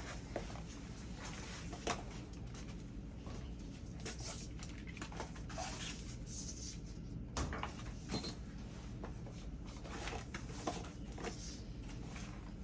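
Scattered handling noises: light knocks, rustles and clicks, with a sharper click about eight seconds in, over a steady low hum.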